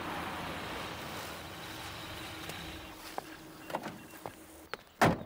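Car engine running, then cutting off about three seconds in, followed by a few light clicks and a single loud door slam near the end.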